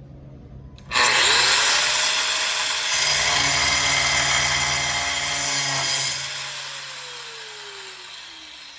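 A DeWalt 43144N 6-inch angle grinder with a cutoff wheel is switched on about a second in and spins up with a rising whine. It cuts with a loud, harsh hiss for about five seconds. After release, its whine falls away gradually as the wheel winds down.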